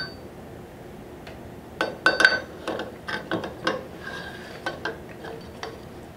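Metal parts of a 2015 Ducati Scrambler's upside-down front fork clinking and tapping as a sleeve is slid back onto the fork tube. There is a sharp clink right at the start, then a cluster of light clinks and taps about two to four seconds in, a few of them ringing briefly, and scattered taps after.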